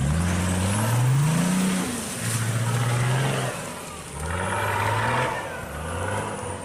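Car engine accelerating through the gears: its pitch climbs, drops back at each shift and climbs again, several times over.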